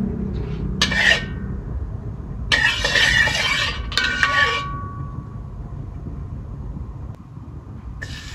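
Metal ladle scraping and clinking against a metal wok in two bursts, the second leaving a short metallic ring. Near the end, chopped garlic drops into hot oil in the wok and starts to sizzle.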